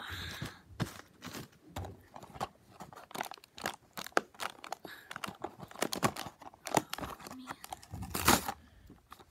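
Clear plastic packaging of a die-cast toy car crinkling and crackling as it is handled and pulled open, in irregular bursts of crackles, the loudest a little before the end.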